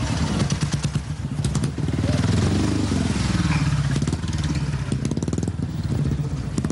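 Speedway motorcycle's single-cylinder engine running with a rapid, rattling firing beat, its pitch falling from about two to three and a half seconds in, then running on at a lower, steady pitch.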